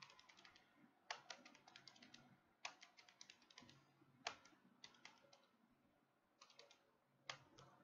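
Keys being tapped faintly in several short, quick runs with pauses between, as figures are keyed in to add up a column of amounts.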